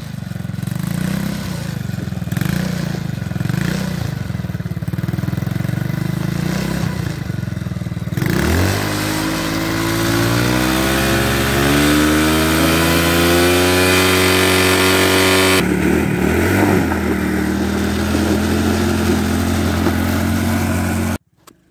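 Small quad ATV engine running at low, slightly wavering revs, then revving up in one long steady climb from about eight seconds in and dropping back after about seven seconds, its wheels spinning in the snow on summer tyres with little grip. The sound cuts off abruptly just before the end.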